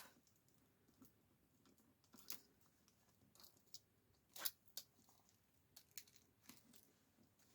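Faint, scattered small clicks and crackles, the strongest about four and a half seconds in, from hands working at a tablet's cracked glass screen and the sellotape over it as the screen is pried open.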